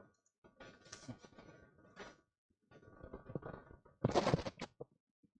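Faint handling noises, soft rustles and light knocks of someone moving about close by, growing louder for a moment about four seconds in.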